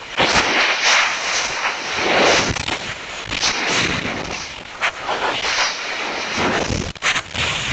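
Wind rushing and buffeting over an onboard rocket camera's microphone, loud and gusty, with a few brief crackles and dropouts.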